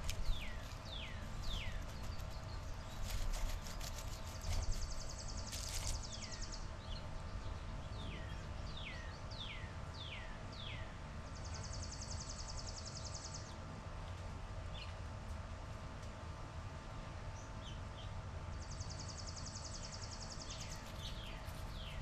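Songbirds singing. One bird repeats down-slurred whistles, about two a second, in bouts near the start, around the middle and at the end. Another gives a dry, even trill about two seconds long, three times.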